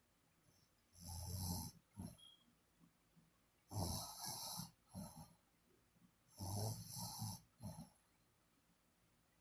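Snoring in slow, regular breaths: three snores about two and a half to three seconds apart. Each is a rasping rumble lasting under a second, followed by a short, fainter one.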